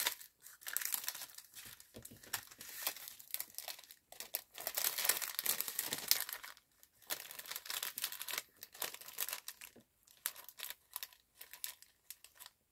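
Clear plastic bag crinkling and rustling in irregular bursts as a layered paper embellishment is slid into it and the bag is handled.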